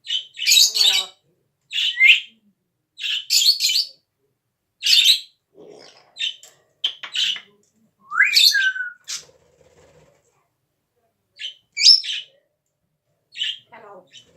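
Pet parrot making a series of short, noisy cough-like sounds, coming irregularly about a second apart. About eight seconds in there is a rising whistled call.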